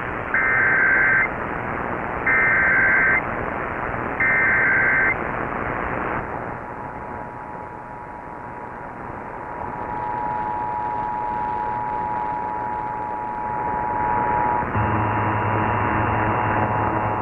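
Emergency Alert System test over radio with steady hiss: three short screeching bursts of SAME data header, then the steady two-tone EAS attention signal. About 15 seconds in, the two-tone signal gives way to a harsher, buzzier tone with several pitches.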